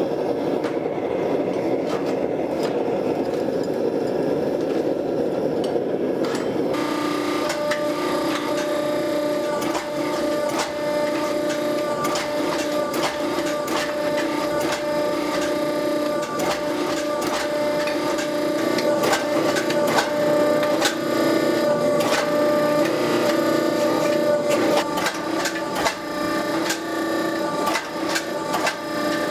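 Steel being forged: a steady rushing noise, then from about seven seconds in a machine hum joins rapid, uneven hammer blows on a hot bar of 1045 steel as it is drawn down thinner.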